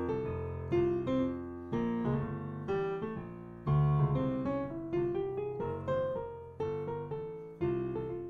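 Piano playing a jazz ii–V–I in F (Gm7, C7, Fmaj7): left-hand chords struck about once a second under a right-hand line taken from the F harmonic minor scale over the C7, an improvising idea for a dominant seventh chord.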